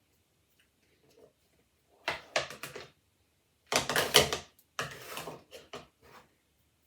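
Knocks and clatter of kitchen things being handled and set down, in two bursts: a short one about two seconds in, then a louder, longer one.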